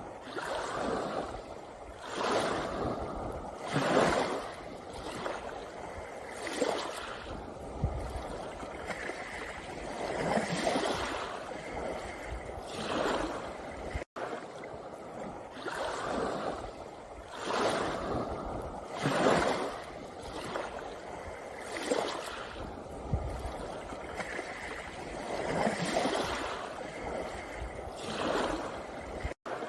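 Small sea waves washing in over a pebble beach, each surge every two to three seconds ending in a hissing rattle of stones. The sound cuts out for an instant twice.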